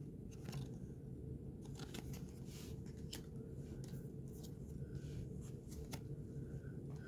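Faint rustling and scattered light clicks of baseball trading cards being handled, over a low steady room hum.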